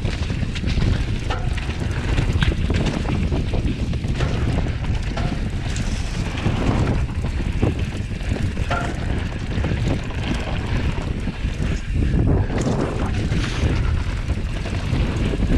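Wind buffeting a camera microphone during a fast descent on a Transition Scout mountain bike down a dirt trail. Under the wind run the tyres on dirt and frequent short knocks and rattles from the bike over the bumps.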